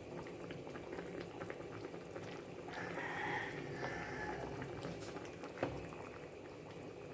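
Chicken in tomato sauce simmering in a pot: a steady, soft crackle of small bubbles, with one light knock a little past halfway.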